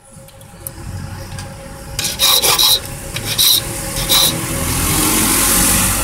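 Hand file rasping back and forth on a tubular key, cutting a notch down to a pin's depth. Louder and sharper strokes come in from about two seconds in.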